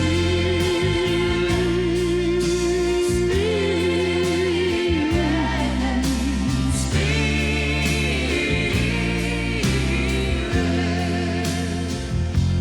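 Slow gospel worship song: a voice holds long notes with vibrato, sliding between pitches, over a steady sustained accompaniment.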